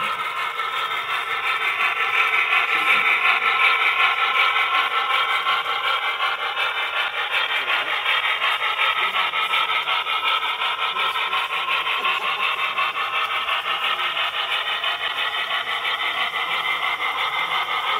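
Cars of a model freight train rolling past close by, their metal wheels on the rails making a steady rasping roll.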